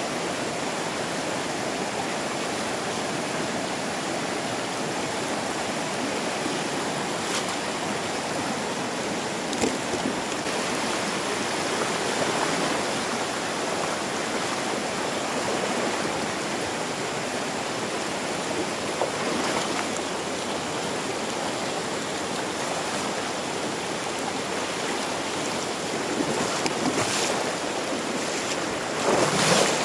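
Shallow, fast-flowing river rushing over rocks: a steady wash of water that swells louder for brief moments a few times, most of all near the end.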